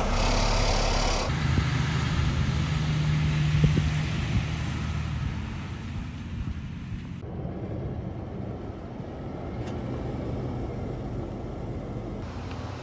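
Mercedes-Benz Zetros 4x4 truck's diesel engine running steadily under load as the truck crawls up and over a steep slope, heard from outside. The sound changes abruptly a few times and grows quieter after the first few seconds.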